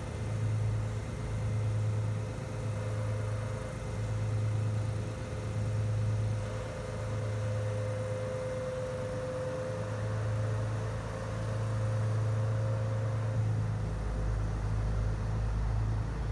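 Diesel engines of an NSB Class 92 diesel multiple unit running at a station stop: a steady low hum that pulses slightly, with a held whine above it. About fourteen seconds in, a deeper rumble sets in as the train starts to pull away.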